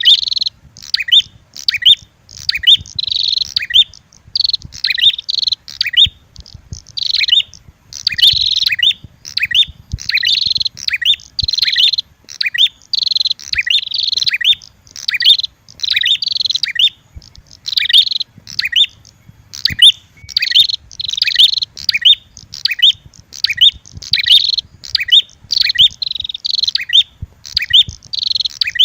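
Prenjak birds chirping nonstop in quick, sharp repeated phrases, about two a second, high-pitched: a looped lure-call recording of a red-headed prenjak mixed with female prenjak fighting calls.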